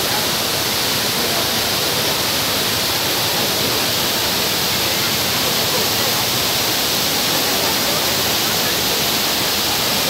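Cascading waterfall pouring over rock ledges: a loud, steady, even rush of falling water.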